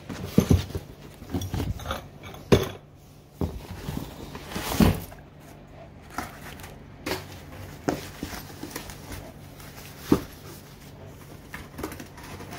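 Cardboard boxes being lifted out of a larger carton: cardboard rustling and scraping, with irregular knocks as boxes bump and are set down, the loudest about five seconds in.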